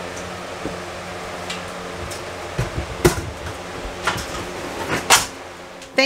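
A steady low hum with about four sharp clacks and knocks in the second half, the last the loudest, from hand work fitting fibreglass insulation batts into a framed wall.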